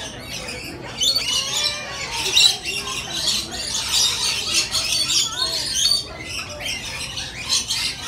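Rainbow lorikeets screeching and chattering, many shrill calls overlapping; the calling gets busier about a second in.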